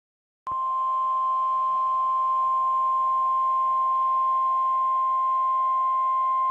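NOAA Weather Radio 1050 Hz warning alarm tone: one steady, unbroken high tone that starts abruptly about half a second in, over faint radio hiss. The tone signals that a warning, here a severe thunderstorm warning, is about to be read out.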